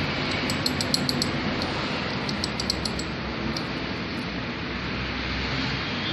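Light metallic clicks from a motorcycle gearbox shaft's gears being handled and turned, in two quick runs of several clicks each, over a steady background hiss.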